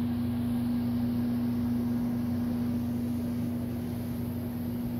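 Steady machine hum: a constant low tone over an even rush of noise, unchanging throughout.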